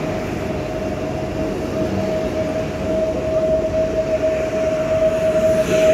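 Koleje Śląskie electric multiple unit pulling out past the platform: a steady high whine from its drive over the rumble of the wheels, getting somewhat louder toward the end.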